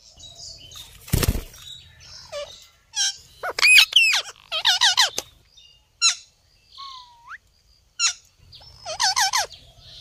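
Green Indian ringneck parakeets calling: a run of warbling, squawking calls in quick succession around four to five seconds in and again near the end, with short sharp chirps and a brief rising whistle between them. A short burst of noise comes about a second in.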